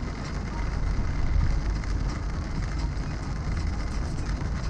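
Car driving on a wet road in the rain, heard from inside: a steady low engine and road rumble with the hiss of tyres and rain on the wet surface.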